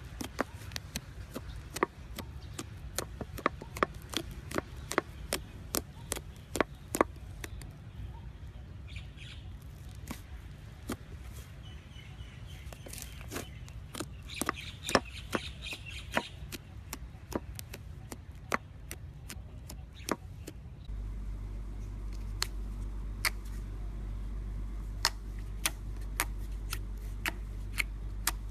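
Slime being squeezed and stretched by hand, giving many sharp sticky clicks and air-bubble pops at an irregular pace of several a second, over a steady low hum.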